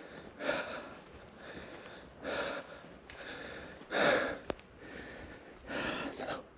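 Heavy breathing of a walker close to the microphone: four loud breaths, about one every two seconds, after a steep climb. There is a single sharp click about halfway through.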